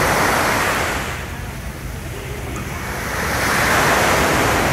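Small waves breaking and washing up a sandy beach, the surf swelling twice, with wind rumbling on the microphone.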